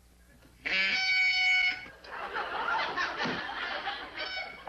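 A high, held bird-like call lasting about a second, followed by studio audience laughter, with a second short call near the end.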